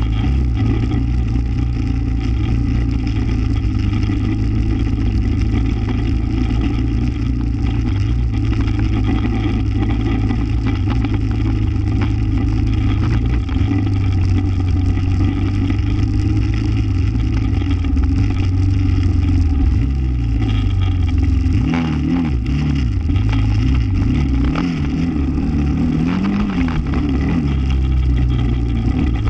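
ATV engine running steadily while ridden over rough grass, then revving up and down several times about two-thirds of the way through as the throttle changes.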